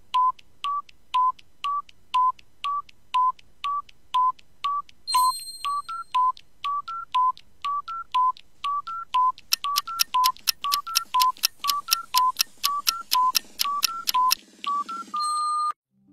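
Electronic countdown-timer beeps, short tones alternating between two pitches about twice a second. About two-thirds of the way through they speed up and climb in pitch, and they end with one long beep as the timer reaches zero.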